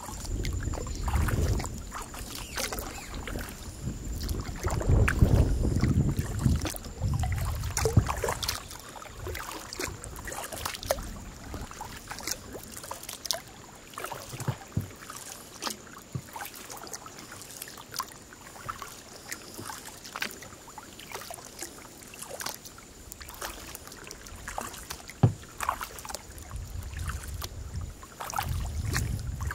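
Kayak being paddled on a calm river: small splashes and drips of water from the paddle blades, with scattered light knocks and ticks. Gusts of wind rumble on the microphone near the start and again near the end, over a thin steady high tone.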